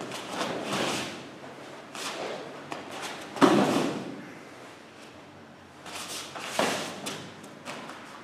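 Thuds and footfalls of bare feet and bodies on foam mats during an aikido throw, with the loudest thump about three and a half seconds in as the partner is brought down to the mat. The sounds echo in a large hall.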